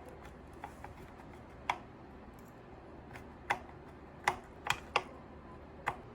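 Light, irregular clicks and taps, about eight of them, sharp and brief, over a quiet room background.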